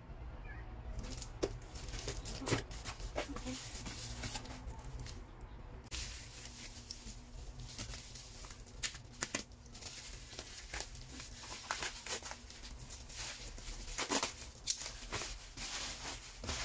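Plastic packaging being torn open and crinkled by hand: irregular sharp rustles and crackles that grow busier a few seconds in.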